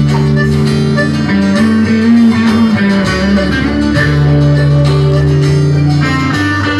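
A band playing an instrumental passage of a song, no singing, with guitar to the fore over held low notes.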